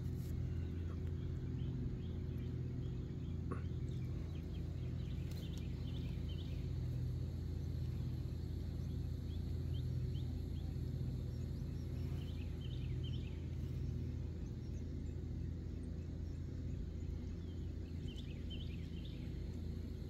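Outdoor ambience: a steady low hum throughout, with small birds giving clusters of short, high chirps three times.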